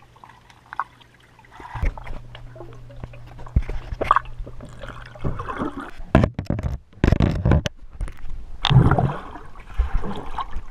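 Underwater sound through a GoPro's waterproof housing: muffled gurgling, bubbling and sloshing as a swimmer moves around the camera, with sharp knocks and thuds. A low steady hum stops about five seconds in, and the water noise is busiest in the second half.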